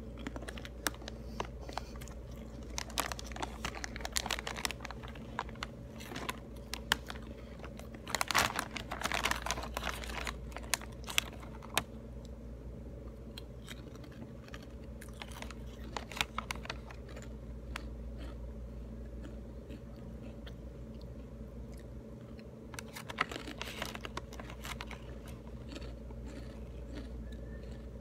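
Crunchy snack chips being chewed close to the microphone, with scattered crisp crunches and clicks. Louder rustling comes about 8 to 11 seconds in and again near 23 seconds. A steady low hum runs underneath.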